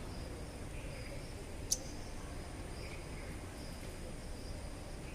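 Small bird chirping faintly: short, high chirps repeating irregularly over a steady low background hum, with one sharp click a little under two seconds in.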